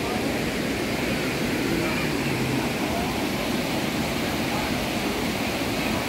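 Steady rush of a waterfall and river in heavy flow, with faint voices of people in the background.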